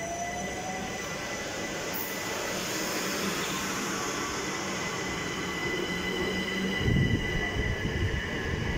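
Southern passenger multiple-unit train moving past close to the platform: a steady rail rumble with a thin high-pitched whine over it. The rumble grows heavier, with uneven wheel thumps, from about seven seconds in.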